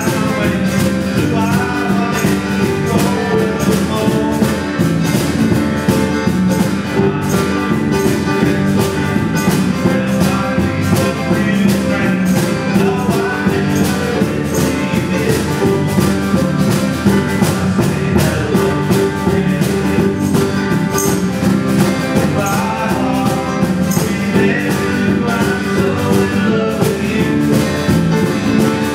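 A small live band playing together: electric bass, acoustic guitar and electric guitar, with a steady beat.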